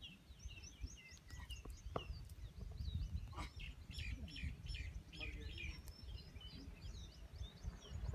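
Small birds chirping: many short, quick, high calls overlapping throughout, over a steady low rumble.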